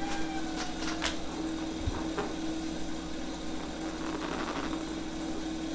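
A steady mechanical hum with a constant tone, with a few light clicks in the first two seconds and a brief rustle a little past the middle.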